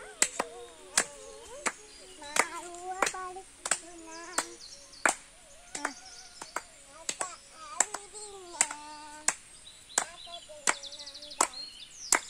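People clapping hands in a steady rhythm, about three claps every two seconds, with voices singing along to the beat.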